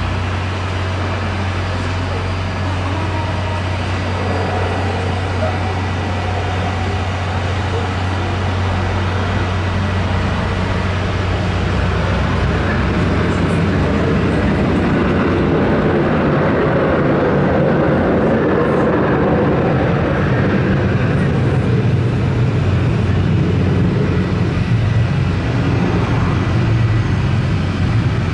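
Boeing 737-500's CFM56-3 turbofan engines running at taxi power as the jet moves out onto the runway, a steady engine noise that grows gradually louder and fuller over the second half.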